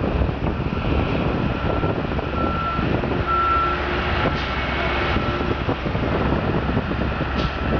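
A heavy work vehicle's engine running steadily while its reversing alarm beeps over it, short single-pitch beeps about once a second.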